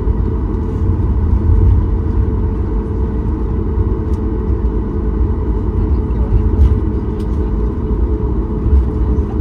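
Cabin noise of a Boeing 737 MAX 8 taxiing, heard inside the cabin over the wing: its CFM LEAP-1B engines at low taxi power give a steady, deep rumble, with a few faint clicks around the middle.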